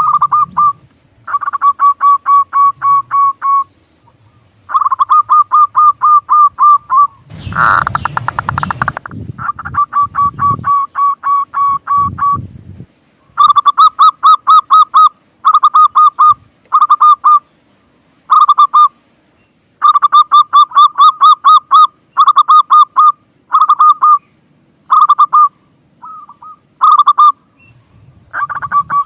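Zebra dove (perkutut) calling: loud phrases of rapid, evenly repeated cooing notes, each phrase a second or two long, with short pauses between. A brief noisy burst breaks in about eight seconds in.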